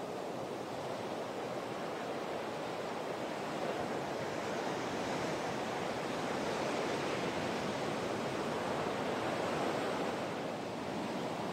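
Ocean waves breaking heavily on a beach shorebreak: a steady rushing wash of surf, growing a little louder in the second half as bigger waves break.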